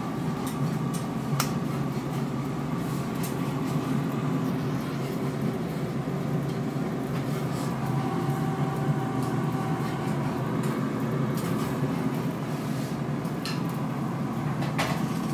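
Countertop air fryer running, its fan giving a steady hum while it cooks sausages, with a few light clicks and knocks over it.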